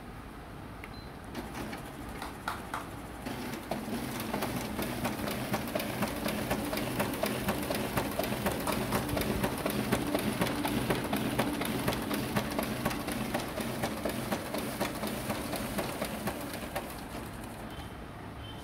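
Canon imageRUNNER Advance 6255 copier's automatic document feeder pulling a stack of originals through the scanner: a fast run of clicking and whirring as sheet after sheet goes through. It starts a second or so in, builds up and holds steady, then dies down near the end as the last pages pass.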